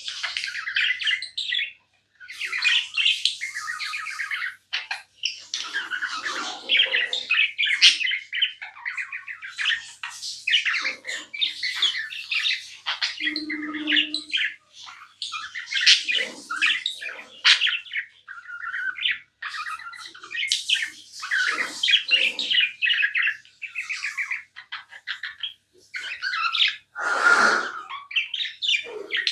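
Pet budgerigars chirping and chattering non-stop, a busy run of quick warbling calls and squawks with only short breaks.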